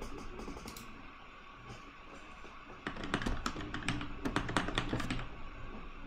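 Typing on a computer keyboard: a quick run of keystrokes starting about three seconds in and lasting about two seconds.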